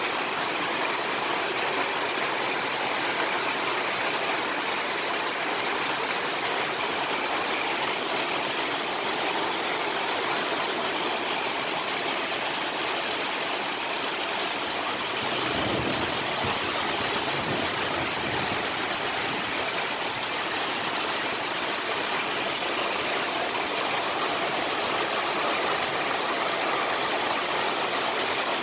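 Heavy rain falling in a steady, even downpour, with a brief low rumble a little past the middle.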